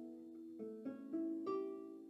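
Plucked string instrument playing a slow melody of single notes. Each note rings on and fades, with four new notes plucked in the second half.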